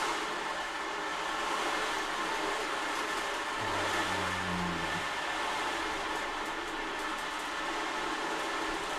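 A dog snoring: one low snore lasting over a second, about four seconds in. It sits under a steady rushing wash of sound with faint ringing tones.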